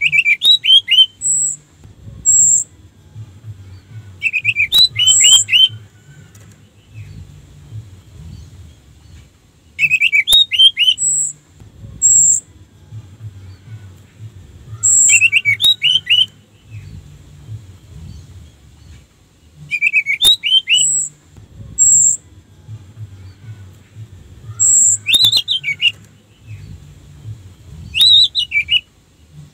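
Orange-headed thrush singing short phrases of quick, rising-and-falling warbled notes, repeated about every five seconds. Two short, very high notes follow most phrases.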